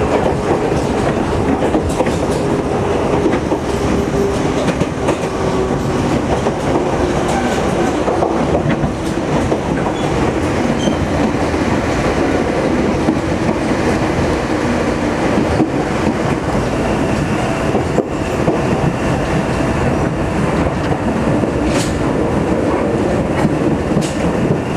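Sangi Railway Sangi Line electric train running along the track, heard from on board: a steady rumble of wheels on rail with faint steady motor tones and a few clicks over rail joints.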